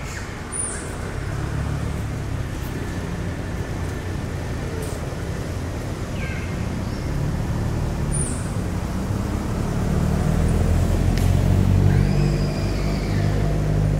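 A motor vehicle's engine running steadily and growing louder toward the end, with a few short high chirps over it.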